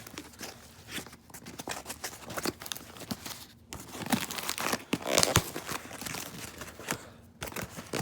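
A shipping package being torn open and handled: irregular tearing, crinkling and rustling of the packaging, with scattered clicks. It grows busiest about halfway through and pauses briefly twice.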